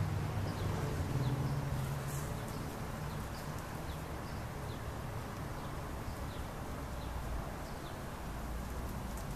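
Outdoor background sound: a propeller aircraft's drone fades away over the first few seconds, leaving a steady low rumble. Faint, short bird chirps come now and then throughout.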